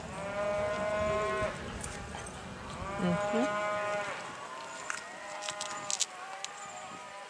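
Cattle bawling three times, each call long and steady in pitch, the third fainter. A few sharp clicks come near the end.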